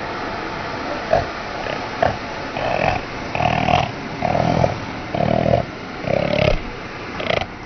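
Hair dryer running steadily, with a string of about eight short, loud vocal bursts from a person over it, one every half second or so.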